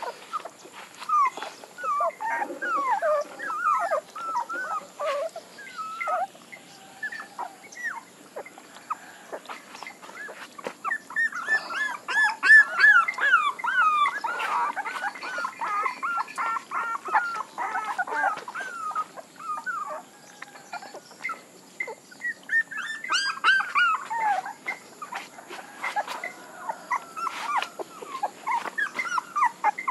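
Young puppies whimpering and squealing in strings of short, high cries. The cries come in three spells with brief lulls between them.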